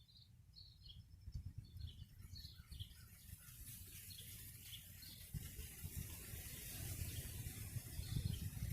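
Faint outdoor ambience: small birds giving short, repeated high chirps, mostly in the first half, over a low gusty rumble and a hiss that grows louder toward the end.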